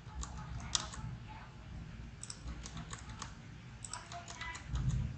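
Computer keyboard and mouse clicks: scattered, irregular single taps while text is deleted in a code editor, with a brief low rumble near the end.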